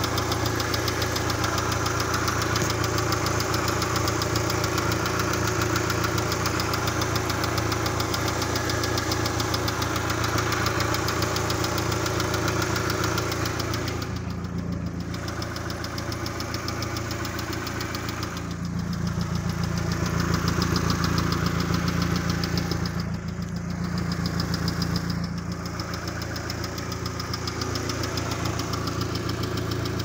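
Car engine idling steadily, heard close up in the engine bay, with an extraneous noise in its running that the owner is trying to track down. About halfway through the higher part of the sound drops away and a steady low hum comes up.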